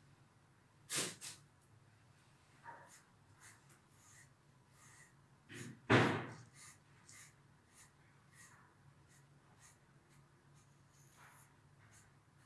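Faint, repeated scratching of a grooming brush drawn through a long-haired dog's coat, with two louder short sudden sounds, one about a second in and one about six seconds in.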